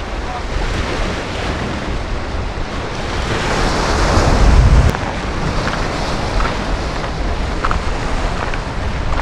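Sea waves washing and splashing against a rock jetty, with wind buffeting the microphone; a bigger wave surges in and breaks about four seconds in.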